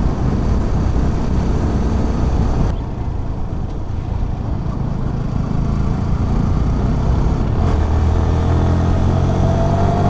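Motorcycle engine running under way, with road and wind noise. From about eight seconds in, the engine note rises slowly as the bike speeds up.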